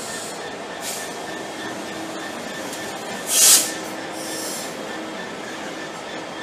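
GBRf Class 66 diesel locomotive, its two-stroke V12 engine running in a steady rumble with a faint steady tone. A short hiss about a second in, and a much louder burst of hiss about three and a half seconds in that lasts under half a second.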